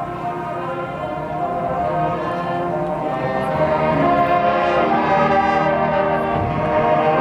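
Marching band playing, its brass holding long sustained chords that swell steadily louder.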